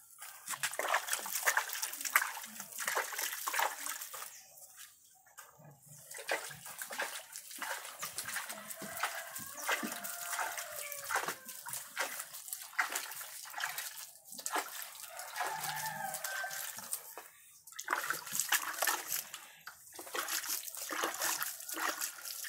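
A steel shovel scraping and turning a heap of dry goat-manure pellets mixed with rice bran. The pellets rattle and crunch in quick, irregular strokes while the compost is mixed. Near the end, liquid is splashed onto the heap from a bucket.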